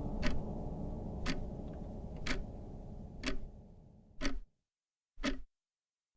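Clock-like ticking, about one tick a second, over a low held drone at the close of a song; the drone fades out about four seconds in and one last tick follows.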